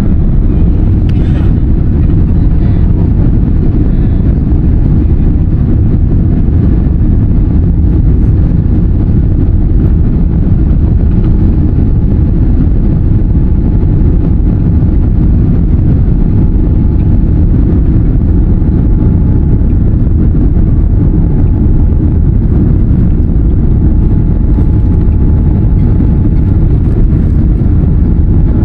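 Boeing 787-10 airliner heard from inside the cabin: the engines and airflow make a steady, loud low rumble with no rise or fall, as during the takeoff run or climb.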